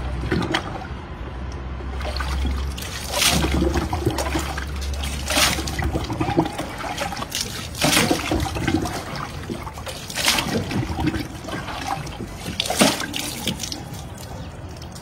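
Water scooped by foot from a plastic bucket and splashed onto a bather's body, about five splashes roughly two and a half seconds apart, with water trickling and dripping between them.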